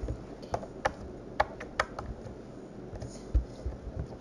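Sticky slime being squeezed and pulled apart by hand, giving irregular sharp clicks and small pops, with a dull thump a little after three seconds in.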